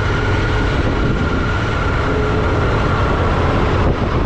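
Steady wind and road rumble from a motorbike riding at speed, with its engine running under it. A faint steady high tone fades out about three seconds in.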